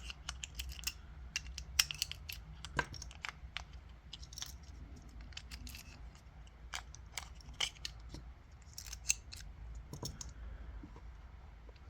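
Irregular small clicks and light metallic taps from a small steel motorcycle lock and tools being handled, over a steady low hum.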